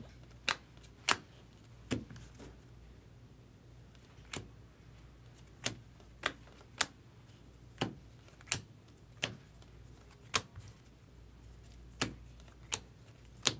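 Trading cards, mostly stiff chrome cards, handled in a stack with a sharp click each time a card is flicked to the next, about fourteen times at uneven gaps.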